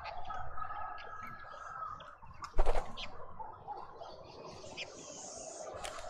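Birds at a garden feeder, with a sudden loud flutter of wings about two and a half seconds in as a bird flies onto or off the feeder. A thin steady whistle runs through the first two seconds, and faint bird chirps sound throughout.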